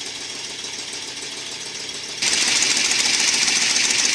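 Ford Boss 302 V8 running after a cold start, first heard from inside the truck's cab. About two seconds in it becomes much louder, heard at the open hood, with a fast, even ticking of exhaust puffing out of leaking headers.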